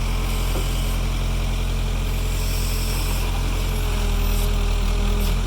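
Backhoe's diesel engine running steadily, its revs rising slightly about four seconds in and falling back near the end.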